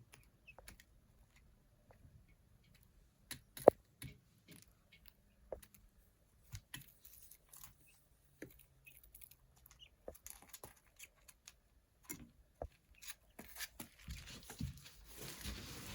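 Young chick pecking at feed in a tray: scattered light taps and clicks, with one sharper tap about four seconds in. A rustling builds near the end.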